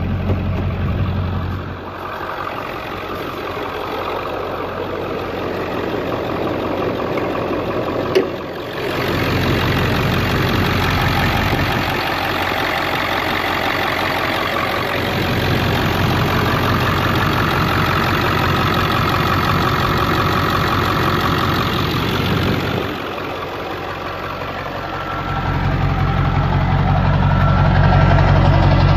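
Ford Power Stroke turbo-diesel V8 idling with its stock high-pressure oil crossover lines, with the diesel knock at idle. A single sharp clunk about eight seconds in as the hood is popped. The idle gets louder and deeper near the end, beside the exhaust under the truck.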